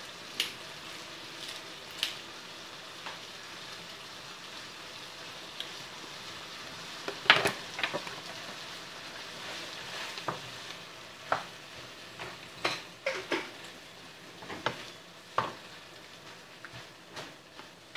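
Shrimp, sliced hot dogs and peppers sizzling in a frying pan as a spatula stirs them, with a steady hiss and scattered clicks and knocks of the spatula against the pan. The loudest knock comes about seven seconds in, and more follow through the second half.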